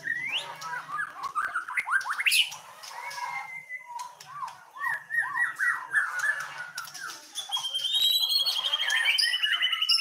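White-rumped shama (murai batu) singing a varied song: quick rising whistled sweeps, then a run of repeated arching notes, then a long high trill from about seven seconds in.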